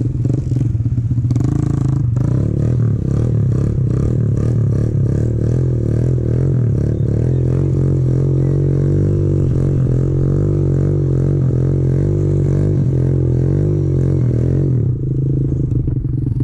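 Pit bike engine running hard, its pitch rising and falling again and again as the throttle is worked. It is heard close up from the rider's own bike, with a rattling clatter over it.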